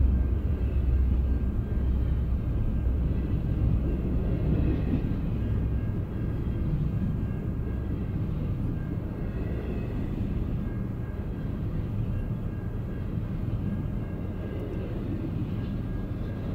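Double-stack intermodal freight train rolling past a grade crossing: a steady rumble of wheels on rail, heard from inside a car's cabin. It grows a little quieter as the locomotive draws away.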